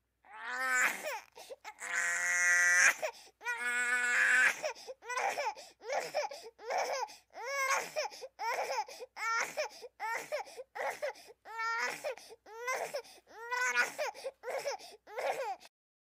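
Infant crying: three long, loud wails, then a steady run of short rhythmic cries, about one to two a second, that stops just before the end.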